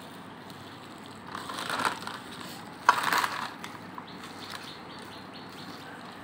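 A bare hand squeezing and mashing grated raw banana against a steel plate, two squelching crunches: one about a second and a half in, and a sharper, louder one that starts suddenly about three seconds in. A few faint ticks follow.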